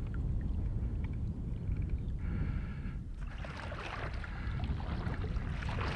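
Wind rumbling on the microphone over small waves lapping in shallow water, with the water sound growing into a louder sloshing hiss from about halfway through.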